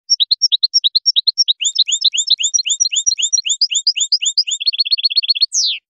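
European goldfinch singing: clear, high notes repeated about six times a second, speeding into a quick trill near the end and closing on one downward slide.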